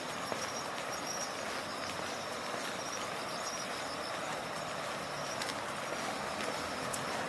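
Autumn night ambience: a steady rushing noise with insects chirping in broken high-pitched trills above it, and a few faint clicks.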